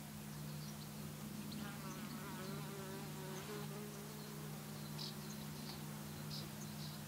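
Honeybees buzzing around an open brood comb: a steady low hum, with one bee's wavering buzz coming closer from about a second and a half in to about four seconds in. Small faint ticks in the second half come from a dissecting needle picking at the wax capping of a brood cell.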